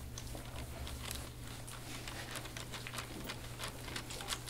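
Faint, irregular soft clicks and crackles over a steady low hum, from an elbow pressing and working deep-tissue pressure into a bare back.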